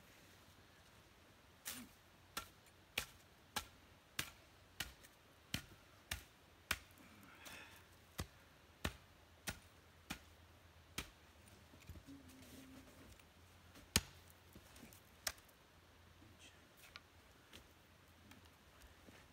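Hatchet chopping into a fir log: a quick run of about a dozen sharp strikes roughly every two-thirds of a second, then a pause and two or three more spaced blows.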